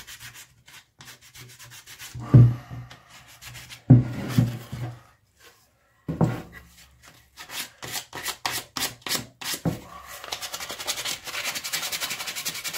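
Hand sanding of carved wood with a small piece of hook-and-loop sandpaper: quick rubbing strokes that become a faster, steady scratching in the last few seconds. A few dull thumps sound in the first half.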